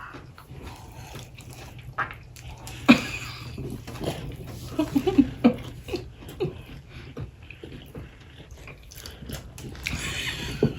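Close-miked eating sounds: chewing and mouth smacks on hot Cheeto-crusted boudin balls, with scattered clicks and crackles, the sharpest about three seconds in. A steady low hum runs underneath.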